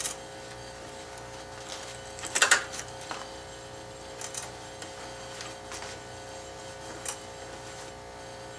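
A 1/2 inch 13 tpi hand tap cutting threads in 4140 steel plate: scattered short metallic clicks and creaks as the tap is turned about a fifth of a turn at a time and backed off to break the chips. The loudest cluster of clicks comes about two and a half seconds in.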